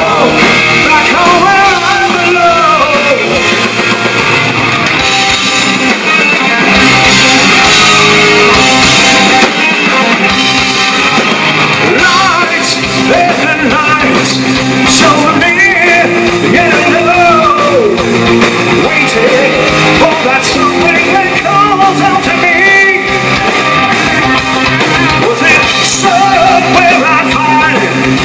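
Hard rock band playing live and loud: distorted electric guitars, bass and drums with a man singing lead.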